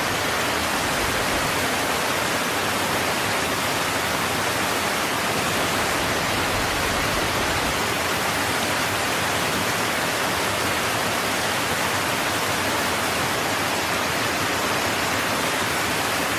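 Creek water rushing steadily: an even, unbroken hiss.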